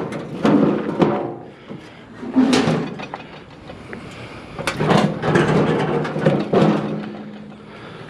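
Metal clanking and rattling from a large outdoor barbecue grill being handled, in several uneven bursts. A longer stretch of clatter runs from about two-thirds of the way in.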